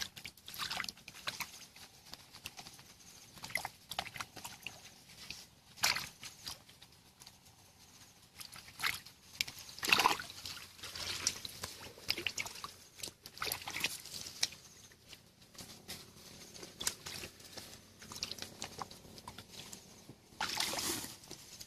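Hands splashing and sloshing in shallow muddy water among sticks while groping for fish, in irregular splashes, the loudest about halfway through and near the end.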